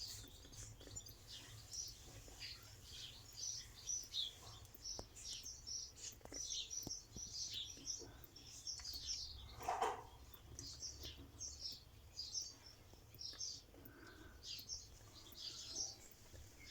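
Small birds chirping: many short, high chirps in quick irregular succession, with one brief louder noise about ten seconds in.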